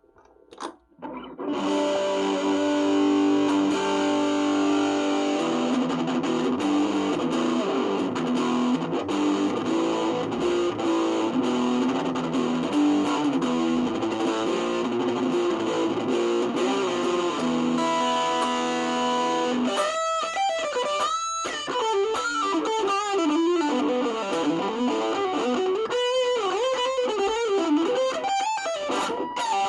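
Electric guitar through a distortion pedal: dense distorted chords and riffs start about a second and a half in. About twenty seconds in, it switches to a single-note lead line with bends and vibrato.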